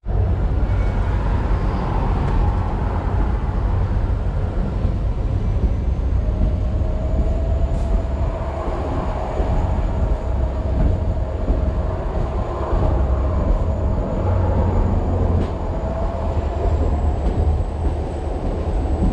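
Passenger train rolling along the track, heard from on board: a steady low rumble of wheels on rail, with a thin whine that comes in about six seconds in and holds.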